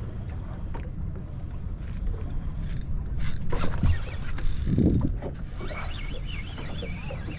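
Wind buffeting the microphone and water slapping against the hull of a small fishing boat on open sea. A few sharp clicks come around the middle, and a dull thump about five seconds in.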